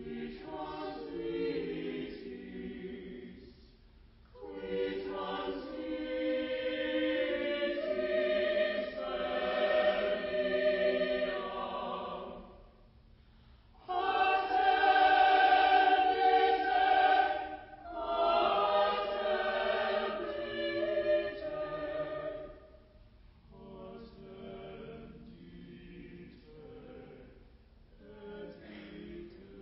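Unaccompanied sung hymn or chant, in long phrases separated by brief pauses, growing softer and more broken in the last several seconds.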